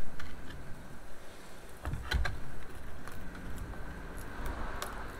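Quiet handling noise as a whole smoked chicken is worked by hand on a wooden cutting board: a few light clicks and soft knocks, with a couple of dull thumps about two seconds in.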